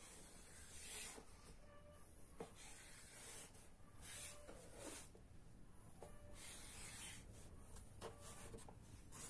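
Faint scraping strokes of a kitchen knife drawn through soft rolled dough onto a wooden cutting board, repeated several times as the dough is cut into strips.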